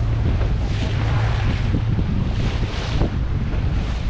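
Wind buffeting the microphone over water rushing and splashing past a powerboat's hull, the hiss swelling and easing every second or two. A steady low hum runs underneath.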